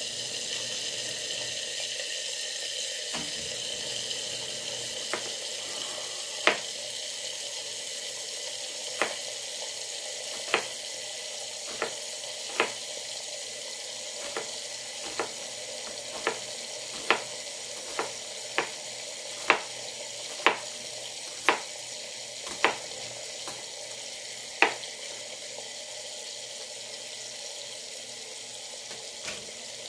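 Bacon sizzling steadily in a lidded cast-iron skillet, with a knife chopping onion on a cutting board: about twenty sharp, irregularly spaced chops from a few seconds in until a few seconds before the end.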